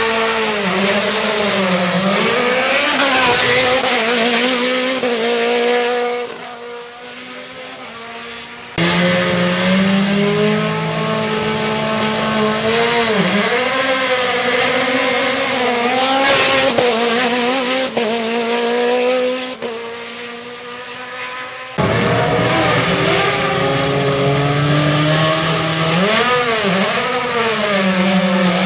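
Sport prototype race car engines revved hard on the start line, the revs held high and wavering, then pulling away with the sound falling off. This happens three times, with abrupt cuts between the cars.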